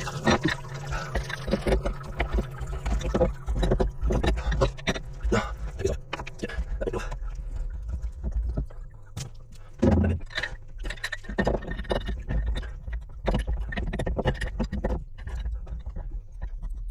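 Irregular knocks, clicks and scraping from hand work on pump pipework, with a louder knock about ten seconds in, over a steady low machinery hum.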